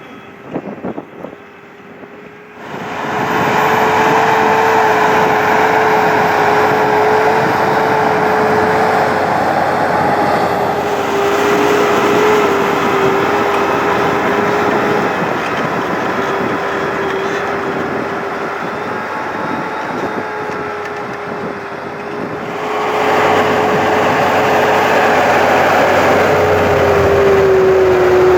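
Fendt 724 Vario tractor's six-cylinder turbo diesel engine working under load, pulling a six-furrow reversible plough, with a steady whine over the engine noise. It gets much louder about two and a half seconds in, eases a little, then swells again in the last few seconds.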